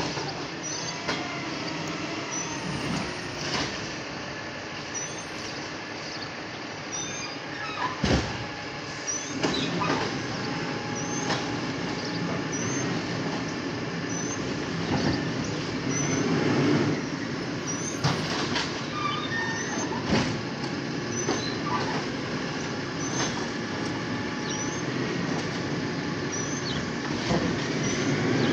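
Garbage truck working out of sight along the street: a heavy engine running, with several sharp clanks and knocks, growing louder near the end as it comes closer.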